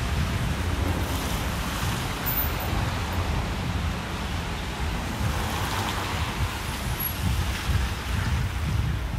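Wind rumbling on the microphone over the hiss of city traffic on wet roads, with the tyre hiss swelling about halfway through.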